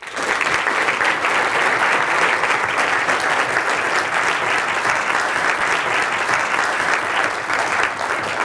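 Audience applauding, a dense clapping that starts to thin out near the end.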